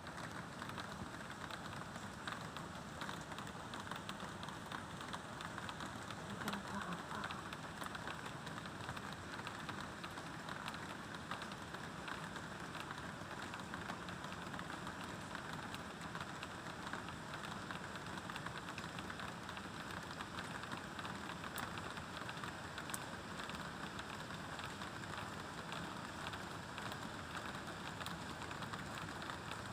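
Light drizzle falling: a steady hiss of rain with a fine patter of drops.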